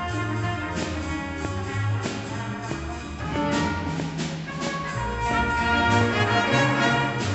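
Jazz big band playing a blues, saxophones over upright bass and piano, with the horns swelling louder about five seconds in.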